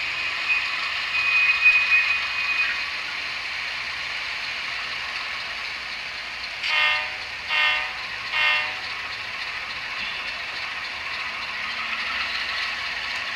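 Tsunami sound decoders in HO-scale Atlas GE U30C and U23B model diesels play the GE prime-mover sound steadily through the models' small speakers. A brief high whine comes about a second in, and three short horn toots sound midway, the railroad signal for backing up.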